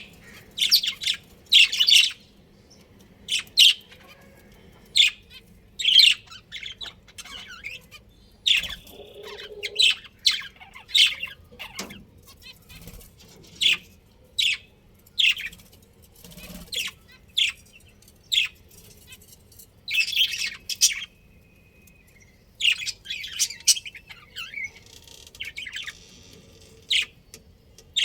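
Budgerigars chirping: many short, high-pitched calls in quick irregular bunches, with brief gaps between.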